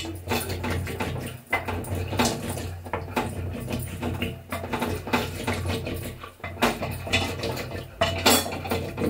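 Wooden ghotni (hand churner) spun back and forth between the palms inside a steel pressure cooker, knocking and scraping against the pot as it mashes boiled peas into a paste. A steady low hum runs underneath.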